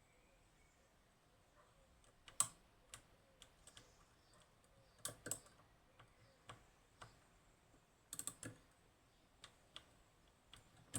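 Lock pick and tensioner clicking inside a Union G110 five-lever lock as its levers are lifted during picking: scattered sharp clicks, with a quick run of clicks about eight seconds in.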